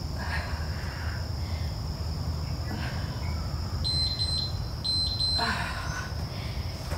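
Gymboss interval timer beeping, a few short high beeps about four seconds in that mark the end of a 45-second work interval, over steady insect chirring.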